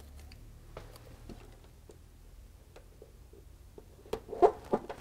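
Hands peeling and pressing a sticky label onto a terminal block on a plywood board: faint, scattered clicks and taps, with a few sharper taps about four seconds in.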